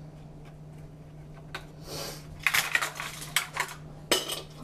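A string of clinks and knocks of glassware and kitchen items handled on a counter, starting about a second and a half in, with the loudest knock near the end. A low steady hum runs underneath.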